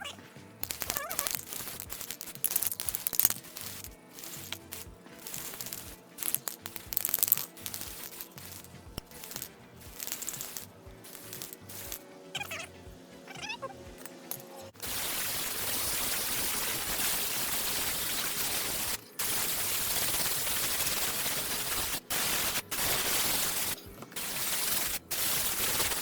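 Aerosol spray paint can: the mixing ball rattles as the can is shaken, then from about halfway through the paint sprays in a loud, steady hiss, in long bursts with a few short breaks.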